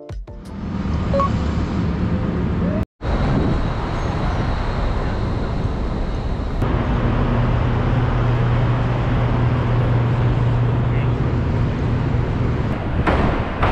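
Busy city street noise: traffic running and a background of indistinct voices. It breaks off for a moment about three seconds in. A steady low engine hum joins from a little after halfway.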